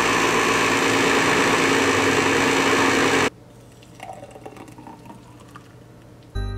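Countertop blender running with a loud, steady motor noise for about three seconds, then cutting off suddenly. After that comes a thick smoothie being poured from the blender jar into a glass, much quieter.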